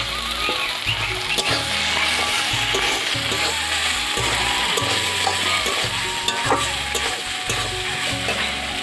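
Water lily stems and coconut sizzling in oil in an iron kadai, with a metal spatula stirring and scraping through the pan. The dish is almost done frying, browned through.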